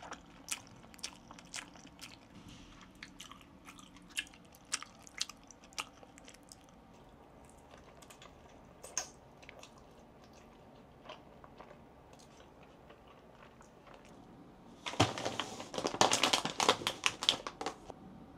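Eating sounds: scattered light clicks of a small plastic fork against a plastic takeaway tray and soft chewing of shrimp dumplings. Near the end, about three seconds of loud crackling from a packet of Lay's potato chips.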